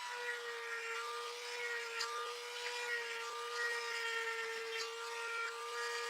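A small electric power tool running at a steady speed with a steady whine, with scattered light scraping clicks on top.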